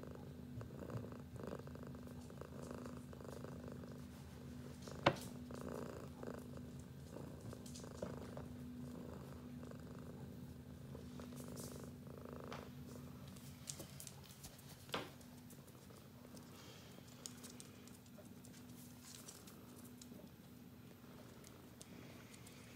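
Domestic cat purring steadily, a low even rumble, with two brief sharp clicks about five and fifteen seconds in.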